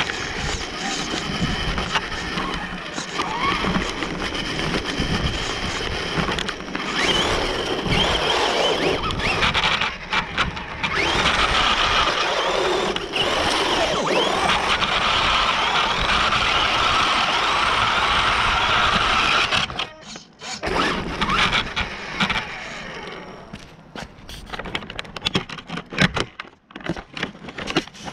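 Onboard sound of an RC buggy driving over paving: a steady motor and gear whine mixed with tyre noise and chassis rattle. It stops about twenty seconds in, and scattered clicks and knocks follow.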